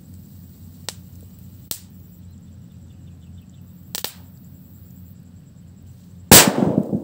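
Homemade triangle firecracker exploding with one loud bang about six seconds in, followed by a long rumbling echo. A few faint sharp clicks come before it.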